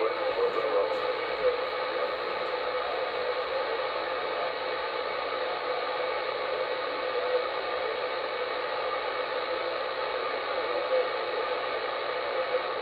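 CB radio on channel 38 (27.385 MHz) on receive, its speaker giving a steady hiss of static and band noise between transmissions, with faint wavering tones in it.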